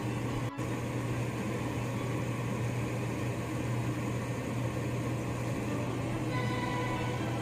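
A steady low mechanical hum, with a few faint musical notes coming in near the end.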